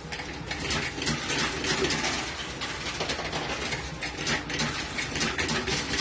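Coin-pusher arcade machine in play: many quick clinks and clicks of peso coins dropping in and sliding against each other on the pusher shelves, over a steady low mechanical hum.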